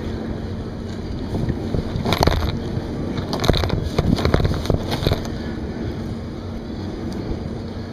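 Kayak paddle strokes splashing in the water, a run of sharp splashes from about two to five seconds in, over steady wind on the microphone.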